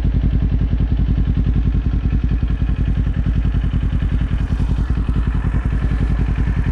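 Kawasaki Z400's 399 cc parallel-twin engine idling, a steady, even, rapid exhaust pulse with no revving.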